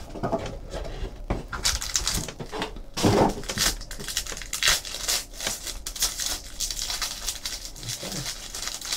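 Crinkling and rustling of a foil trading-card pack and its box as they are handled and the pack is opened: a run of quick, irregular crackles, louder about three seconds in.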